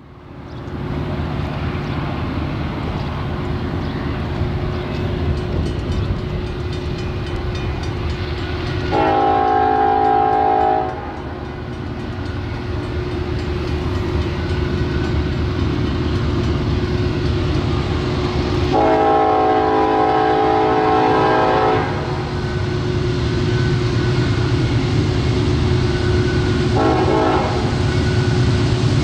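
Norfolk Southern diesel freight locomotive running with a steady engine drone while its multi-chime air horn sounds two long blasts and a short one, the opening of the grade-crossing signal.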